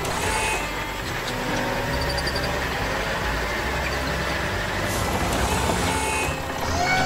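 Tractor engine sound effect running steadily.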